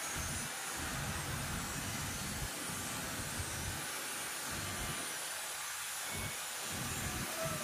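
Steady hissing background noise, with irregular low rumbles coming and going through the first two thirds.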